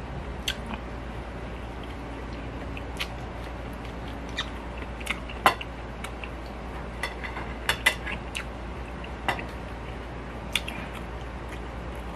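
Eating sounds of a person eating by hand: chewing and lip smacks heard as short scattered clicks, the loudest about halfway through, with light clinks on a ceramic plate, over a steady low hum.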